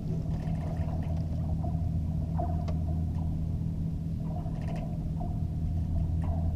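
A steady low hum aboard a Beneteau 40.7 sailing yacht under sail, with a few faint clicks and creaks. The owner puts such a hum in the recording down to the heavy tension on the backstay.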